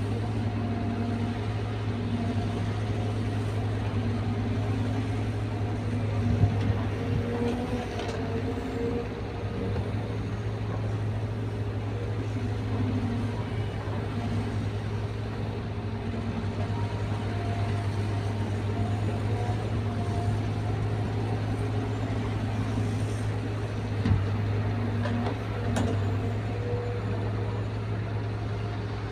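Caterpillar 320 excavator's diesel engine running steadily, with a whine that rises and falls as the hydraulics work. Two short knocks, one about a quarter of the way in and one near the end.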